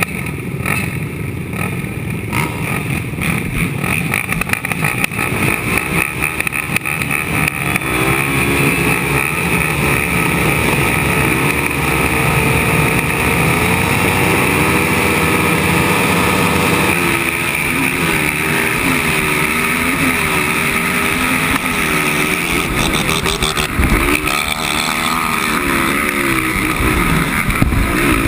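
450-class race quad engines idling and revving at the starting line, their pitch rising and falling repeatedly, then pulling away at full throttle once the race is under way.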